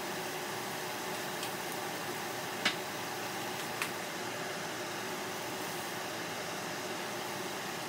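Steady hiss with a faint hum under it, broken by two sharp clicks about a second apart in the middle as kitchen utensils knock against the stainless steel pot.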